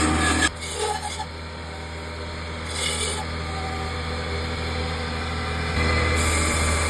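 Power tool motor running with a steady hum while wood is filed or scraped against it; the sound drops about half a second in and comes back up near the end.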